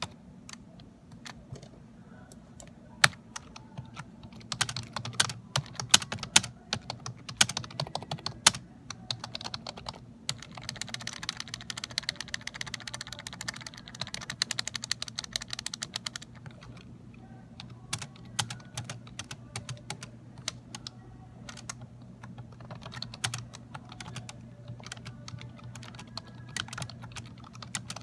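Typing on a Dell computer keyboard: a continuous patter of key clicks, quickening into a dense, fast run about ten seconds in that eases off a few seconds later.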